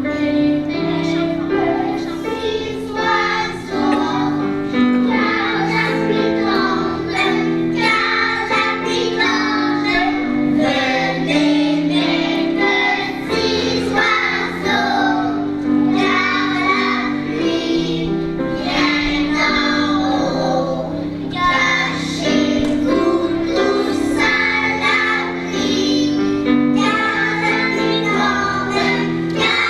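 A group of children singing a song together over instrumental accompaniment, with held lower notes beneath the melody.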